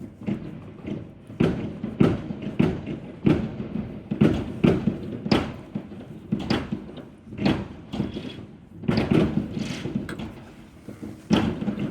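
Fireworks going off all around: an irregular run of bangs, about one or two a second, each with a short echoing tail.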